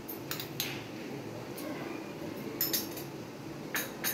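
Several light clinks of kitchenware, coming roughly in pairs, over a low steady hum.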